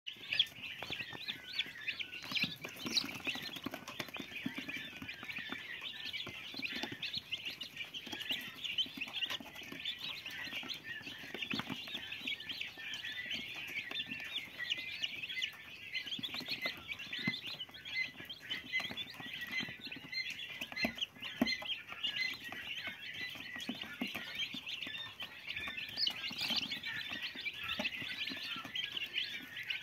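A brood of young chicks peeping continuously, many short high-pitched calls overlapping without a break, with scattered soft taps.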